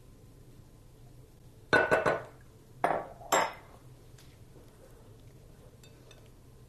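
Glass kitchenware knocking together as a glass measuring cup is emptied into a glass mixing bowl: a quick cluster of clinks about two seconds in, then two more sharp knocks about a second later.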